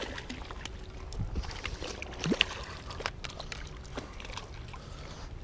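A hooked European sea bass splashing and thrashing at the surface of shallow water as it is played in to the shore, with scattered small clicks and knocks.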